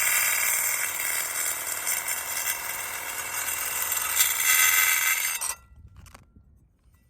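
Power drill spinning a hole saw against a folded asphalt shingle pushed inside it, a loud grinding scrape as the shingle clears gunk from between the saw's teeth. It cuts off suddenly about five and a half seconds in, followed by a couple of faint clinks.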